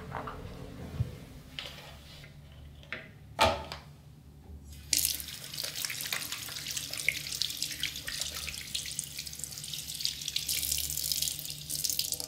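A few knocks, the loudest about three and a half seconds in, then water starts running suddenly about five seconds in, a steady crackling splash that cuts off abruptly at the end.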